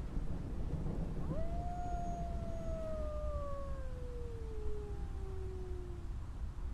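A single long wolf howl that rises quickly, then falls slowly in pitch for about five seconds, over a steady low rumble.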